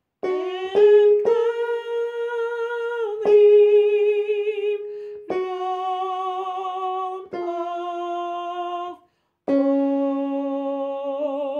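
A woman singing the alto harmony line of the hymn's last line, unaccompanied. It comes as a series of about six held notes with some vibrato, the last one lower than the rest.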